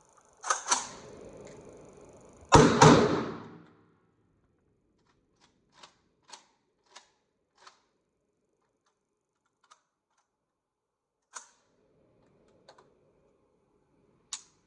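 A loud bang with a tail of about a second, followed by a string of light, sharp clicks spaced a second or more apart.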